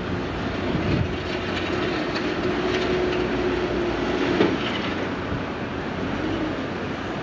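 A heavy engine running with a steady hum, with sharp knocks about a second in and again after about four and a half seconds, over a broad rushing noise.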